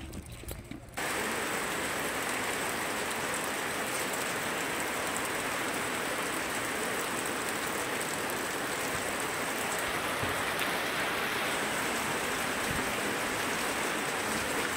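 Steady hiss of rain falling, starting abruptly about a second in.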